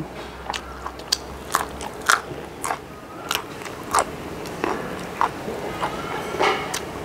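Raw yard-long bean bitten and chewed with crisp, irregular crunches. A second raw green vegetable is bitten near the end.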